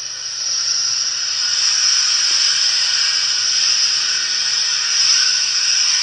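Radio static: a loud, steady hiss that swells in over about the first second and a half and then holds.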